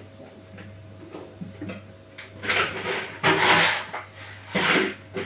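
Kitchen handling noise: a few faint knocks, then three loud rustling, scraping bursts in the second half, like a drawer or cupboard being worked and things moved about.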